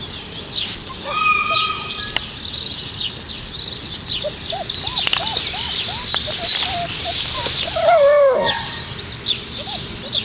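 Four-week-old Alaskan Malamute puppies yipping during rough play: a quick run of short, squeaky yips around the middle and a louder yelp falling in pitch about eight seconds in. Birds chirp faintly throughout.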